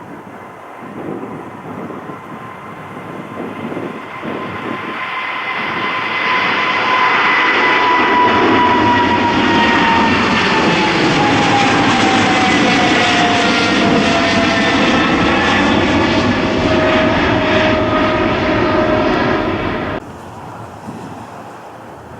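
Jet airliner passing close by: the engine noise builds over several seconds, then holds loud with a high whine that slowly falls in pitch as it goes past, and cuts off suddenly near the end.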